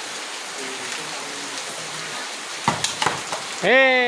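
Steady hiss of rain falling on the ground, with a couple of sharp thumps about two and a half seconds in. Near the end a voice breaks in with a long, drawn-out shout.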